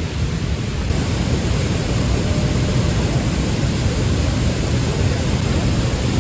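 Stream and waterfall swollen in monsoon flood, water rushing steadily and loudly, getting a little louder about a second in.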